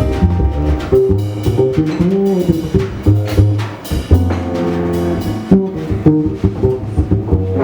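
Jazz quintet playing: walking double bass and drum kit with cymbals under keyboard chords and a sustained melody line.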